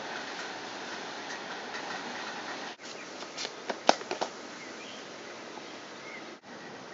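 Steady outdoor background hiss that drops out briefly twice; a little under three and a half seconds in comes a short run of sharp clicks and knocks, the loudest about four seconds in.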